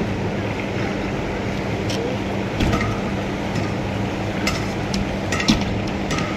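Construction-site noise: a steady machine hum with a few scattered sharp knocks and clinks, the loudest about five and a half seconds in.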